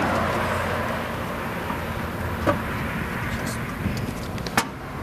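Steady roadside traffic and road noise, with a few short sharp knocks from the tire change: one about two and a half seconds in and the loudest near the end.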